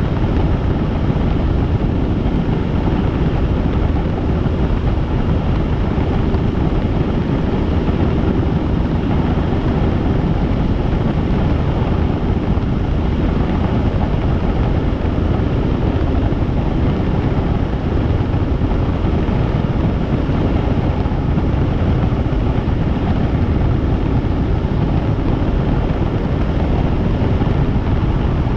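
Helicopter in steady flight: a loud, unchanging drone of rotor and engine noise, heaviest in the low range.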